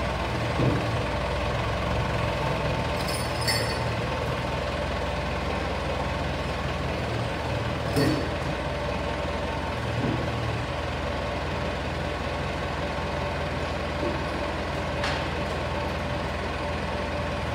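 A JCB loader's diesel engine running steadily, with a few short sharp knocks over it.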